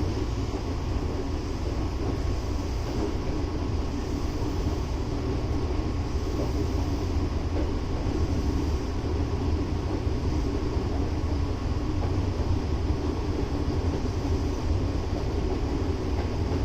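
Hankyu 8040-series electric train running at a steady speed: an even rumble of wheels on rail and running gear, with a faint steady whine from the drive.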